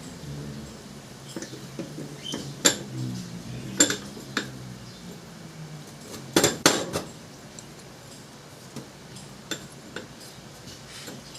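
Metal stove parts clinking and knocking as they are handled, with scattered sharp strikes and a quick cluster of them about six and a half seconds in. A faint low hum sits under the first half.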